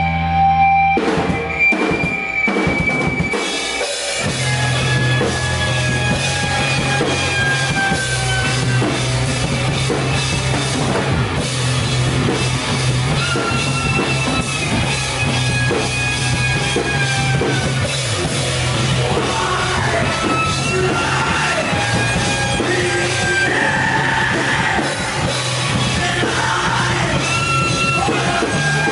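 Live rock band playing an instrumental passage on drum kit, electric bass and electric guitars, with a deep held bass note under long high guitar notes that bend slightly in pitch.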